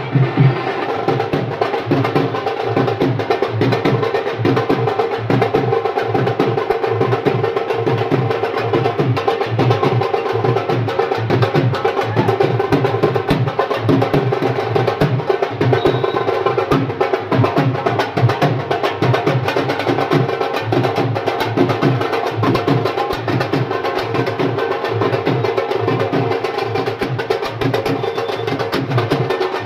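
Music with a dense, fast percussion beat of sharp knock-like hits over held tones, running steadily throughout.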